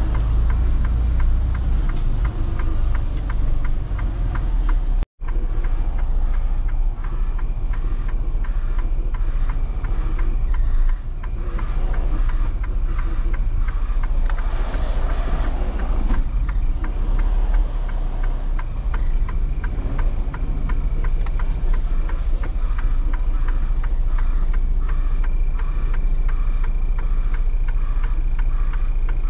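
Box truck's diesel engine running at low speed under light load, heard from inside the cab as the truck is manoeuvred back toward a loading dock, with a fast, even ticking over the low engine sound. The sound cuts out for an instant about five seconds in.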